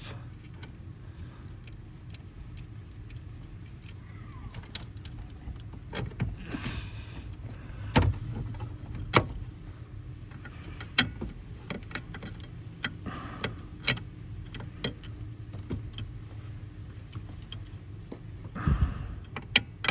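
Scattered metallic clicks, clinks and knocks of hand tools and hardware as the ignition switch of a 1987 Ford F-150 is unbolted from the steering column, with a longer scraping rustle about seven seconds in and again near the end, over a steady low hum.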